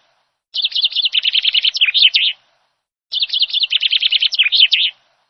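Eurasian wren singing: two loud bursts of rapid, high trilled song, each about two seconds long, with a pause of under a second between them.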